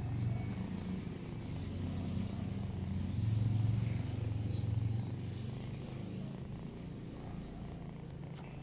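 Kitten purring close up: a steady low rumble, loudest a few seconds in and easing off toward the end.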